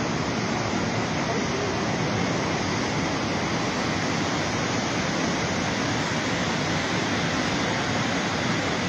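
Flooded river in spate, a steady rush of fast, muddy floodwater.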